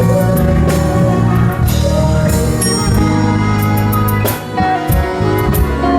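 Live gospel band playing an instrumental passage: held keyboard chords over a bass line, with the drum kit's cymbals striking again and again.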